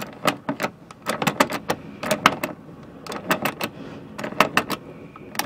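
Half-inch ratcheting box-end wrench clicking as it snugs down a nut on a mounting bolt, each back-swing giving a short run of quick ratchet clicks, about one run a second.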